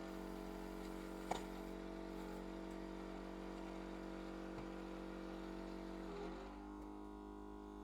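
Steady, quiet hum of the LCD screen separator machine's vacuum pump holding the phone screen down, with a single light click about a second in; the hum's tone shifts slightly a little after six seconds.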